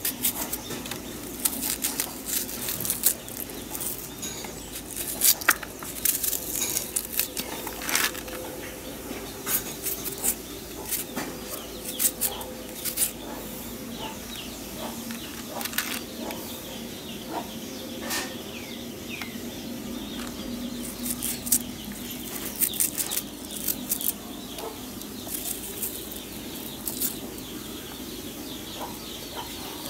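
Small knife slicing a raw onion by hand, a run of crisp, irregular cutting clicks.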